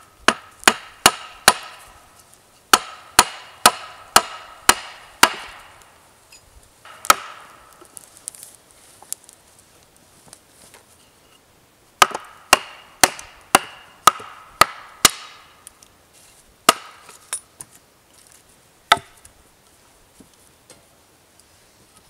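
Hatchet chopping into a wooden log: sharp, briefly ringing strikes about two to three a second, in runs with pauses between them and a longer pause about halfway through.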